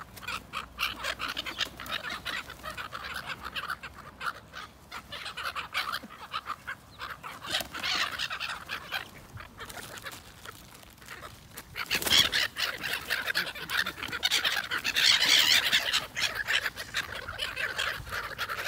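A flock of park birds squabbling over food, mainly black-headed gulls with mallards and pigeons, giving a continuous run of short, harsh calls. The calling swells about twelve seconds in and stays louder for a few seconds.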